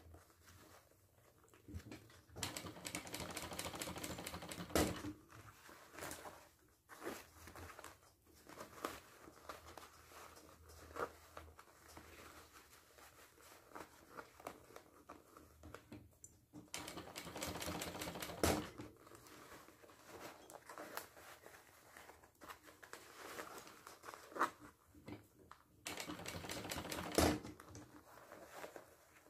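Industrial sewing machine stitching in short runs, a fast even clatter of needle strokes, with pauses between runs. The three longest runs start about 2 seconds in, about 17 seconds in and near the end. This is slow topstitching through a bag's lining and main fabric.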